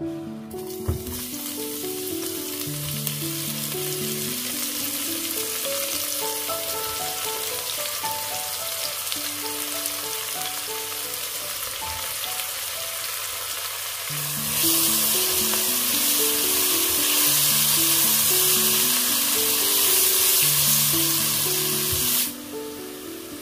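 Chopped celery, carrot and leek frying in hot oil in a pot: a steady sizzle that gets louder about two-thirds of the way through and stops abruptly near the end.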